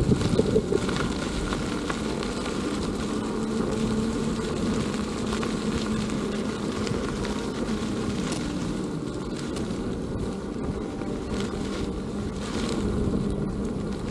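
Wind rushing over the microphone of a moving Veteran Sherman S electric unicycle, with the hub motor's steady hum and tyre rumble underneath and a few faint ticks from bumps.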